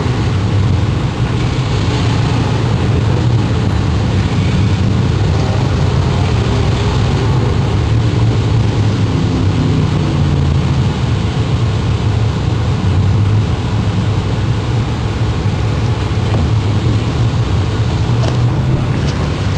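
A vehicle engine running at a steady, even pitch.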